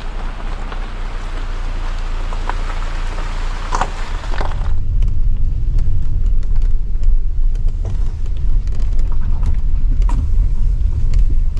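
A car driving on a bumpy gravel road, heard from inside: a low rumble of tyres and suspension with scattered knocks and rattles. About five seconds in, the higher hiss cuts off suddenly and the low rumble gets louder.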